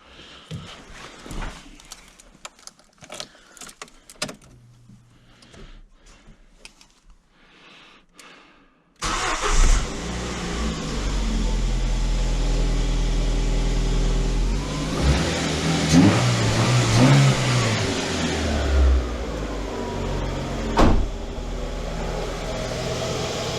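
A 2005 Ford Ka's 1.3-litre four-cylinder petrol engine starting abruptly about nine seconds in, after a few light clicks of handling under the bonnet, then running. Its speed rises and falls briefly a few seconds later before it settles to a steady idle, running with no misfire on freshly fitted ignition leads.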